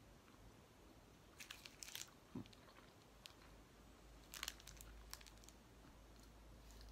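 Faint chewing of a Cadbury Moro bar (caramel and nougat in milk chocolate), with a few short crackles as the foil-wrapped bar is handled, in clusters about a second and a half in and again about four and a half seconds in.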